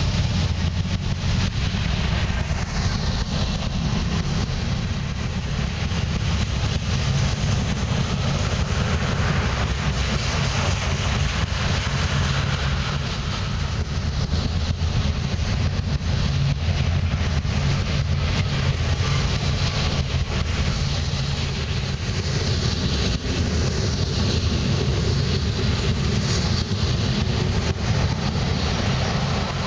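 Freight train cars rolling past: a steady rumble of steel wheels on the rails, with rattling from the cars.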